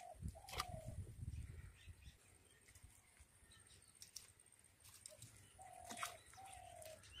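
Quiet wetland ambience with a dove cooing twice, each time a pair of short, steady notes, the second pair about five seconds after the first. A few faint clicks and a brief low rumble near the start.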